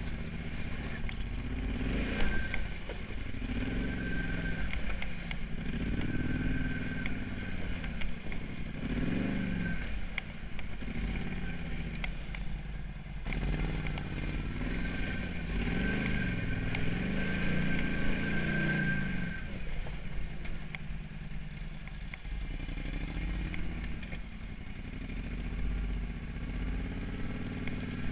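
Polaris Scrambler 850 ATV's twin-cylinder engine revving up and down in repeated surges while crawling through a rocky creek. It settles to steadier, lower running between about ten and thirteen seconds in and again for the last third.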